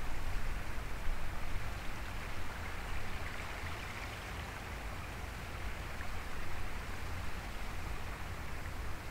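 Wind buffeting the microphone, with an uneven low rumble under a steady rushing hiss.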